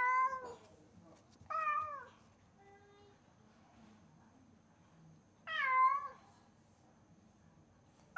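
Domestic cat meowing loudly, left home alone: long meows a few seconds apart, each dropping in pitch at the end. One comes right at the start, one about a second and a half in, one about five and a half seconds in, and a fourth begins at the very end.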